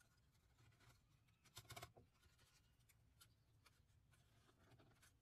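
Near silence with faint taps and rubbing as thin mahogany strips are handled and fitted by hand against a wooden box frame, with a short cluster of clicks about a second and a half in.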